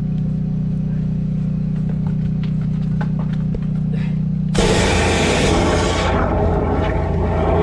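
Drain jetter's engine running steadily, then about four and a half seconds in a sudden loud rush of water as the high-pressure jet starts flushing through the broken drain pipe.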